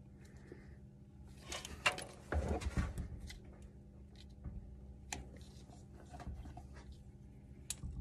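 A blunt knife scraping and cutting the black outer jacket of LDF4-50A half-inch coaxial cable to strip it. The loudest scraping and rustling comes about one and a half to three seconds in, with a few sharp clicks later.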